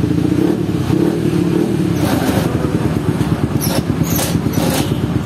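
A motorcycle engine running steadily, with an even, rapid pulse. Several short metallic clicks of hand tools on an aluminium cylinder head come through from about two seconds in.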